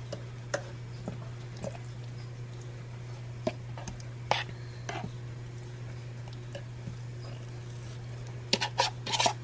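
Raw chicken pieces being moved around by hand in a ceramic slow-cooker crock: scattered light knocks and taps against the pot, with a quick run of clatter near the end. A steady low hum sits underneath.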